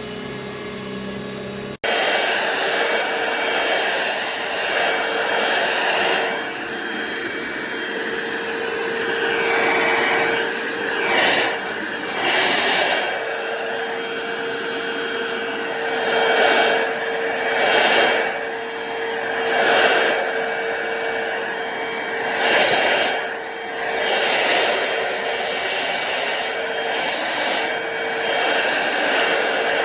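Cordless stick vacuum cleaner running steadily, a motor whine under a wide rush of air, swelling louder every second or two as it works over the floor. About two seconds in, the sound briefly drops out and comes back louder.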